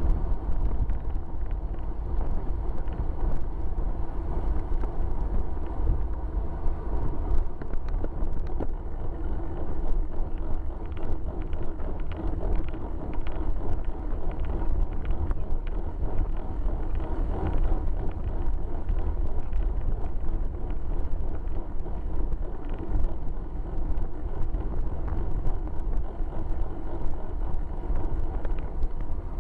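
Wind buffeting the microphone of a bike-mounted camera on a road bike riding at speed, a steady low rumble, with the rushing noise of tyres on the wet road.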